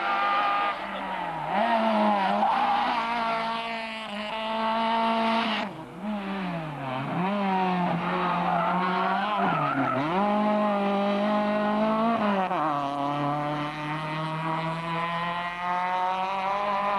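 Rally car engine revving hard, its pitch climbing and dropping again and again with gear changes and throttle lifts, with a brief dip about six seconds in, then holding steadier near the end.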